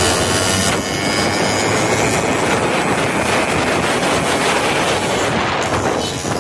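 Loud, steady rush of road vehicle noise, engines mixed with wind on the microphone.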